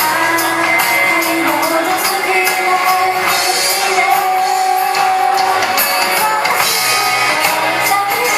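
Pop song with a sung vocal over a backing track with a steady beat, played loud in a large hall.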